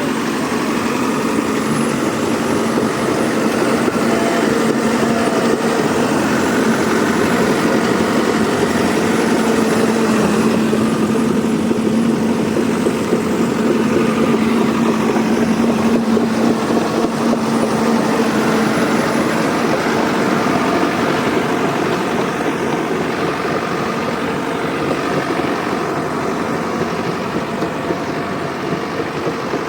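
A heavy machine's engine running steadily at an even pitch, easing off slightly near the end.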